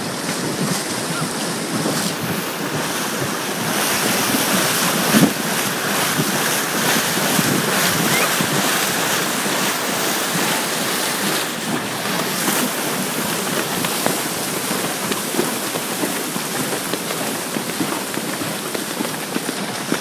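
Ocean surf and wind buffeting the microphone, with horses' hooves splashing through shallow water. One sharp bump about five seconds in.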